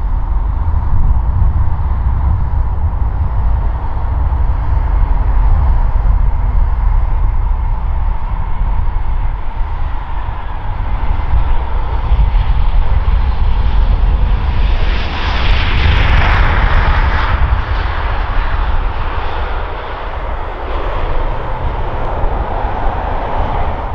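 Airbus A320 jet engines on landing: a steady whine over a deep rumble on approach, then about fifteen seconds in a louder rushing roar swells up and fades over a few seconds as the airliner reaches the runway.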